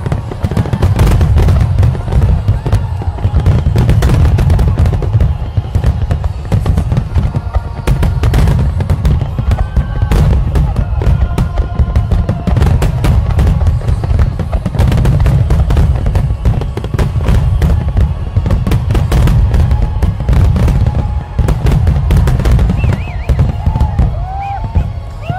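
Fireworks barrage with many aerial shells bursting in quick succession: a continuous low rumble of overlapping booms with sharp crackles throughout.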